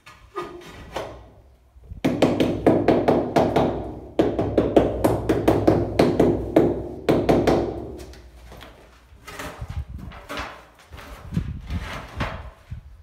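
White rubber mallet tapping a large stone-look ceramic wall tile to bed it into the tile adhesive. Rapid, dense taps start about two seconds in and run for several seconds, then come slower, spaced knocks near the end.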